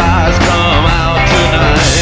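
Rock music with a sung vocal line over guitar and drums.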